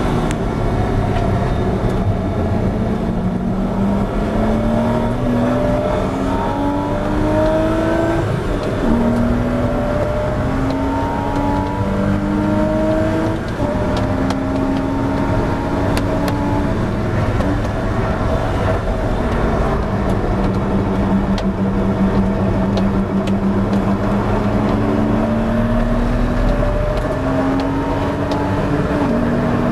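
Porsche 986 Boxster S flat-six engine heard from inside the race car's cabin, pulling hard with its pitch rising through the gears and dropping back at each upshift. It eases off and runs steadier partway through, then climbs again near the end.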